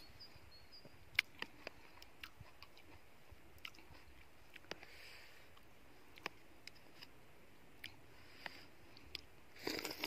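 A person eating cherries with a metal spoon from a plastic tub: quiet chewing with scattered sharp clicks of the spoon against the tub, the sharpest about a second in, and a brief burst of noise near the end.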